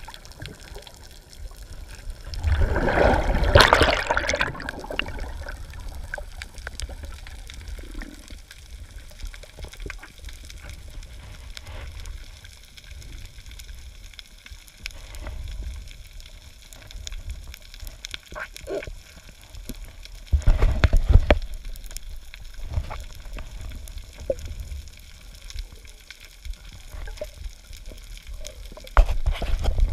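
Underwater sound picked up by a camera held below the surface by a swimming snorkeller: a steady low wash of water, with louder surges of moving water about three seconds in, around twenty seconds in, and near the end.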